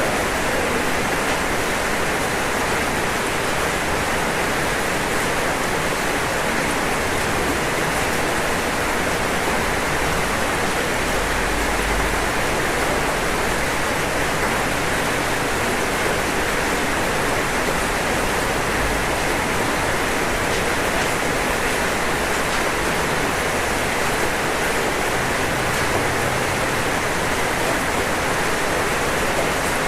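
Heavy rain falling steadily on a roof, a dense, even hiss with no separate drops standing out.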